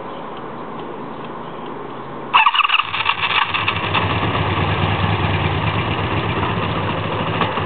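1984 Honda Magna V65's V4 engine on choke during a hard start: a quieter steady running sound, then about two and a half seconds in it fires with a sudden loud burst and runs louder and rough, dropping off near the end.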